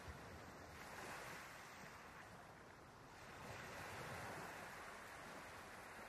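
Faint, even rushing noise with no distinct events, swelling about a second in and again around four seconds.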